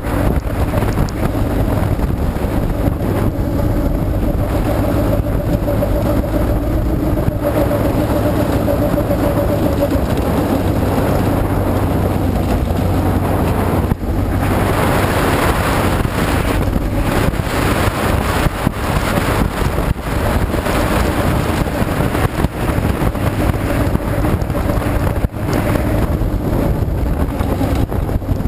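Engine of an un-caged vintage speedway midget car running at racing speed, heard from on board with wind rushing over the microphone. About halfway through the sound turns brighter and noisier.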